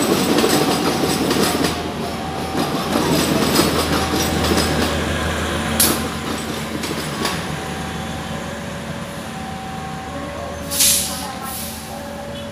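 Prambanan Ekspres diesel multiple unit passing, its wheels rumbling and clattering on the track, then fading as the train moves away, with a low steady hum underneath. A short sharp hiss comes about six seconds in and another near the end.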